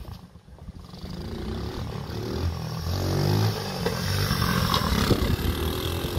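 Single-cylinder four-stroke 110cc pit bike engine on a converted mobility scooter, running under throttle. It grows louder as the scooter approaches and passes close by, with a shift in pitch as it goes past.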